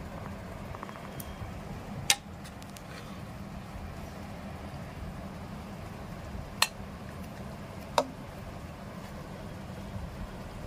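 A steel ladle clinks three times against an aluminium pressure cooker and a glass bowl as curry is served out, about two, six and a half, and eight seconds in, over a steady low hum.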